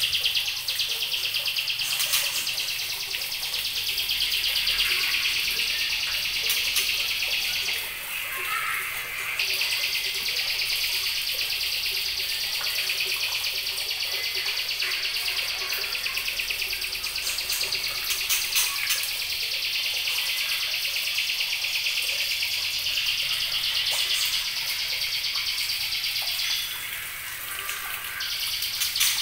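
Juvenile white-rumped shamas, about two months old, singing a continuous fast, high chatter. It breaks off briefly about eight seconds in and again near the end.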